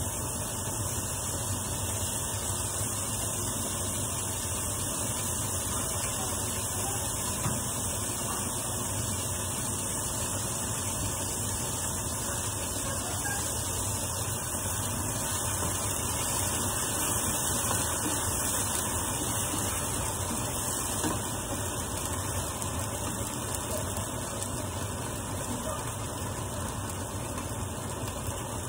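Steady sizzling hiss of onion and cherry tomatoes frying in a pan while tomato sauce is poured in from a can and stirred.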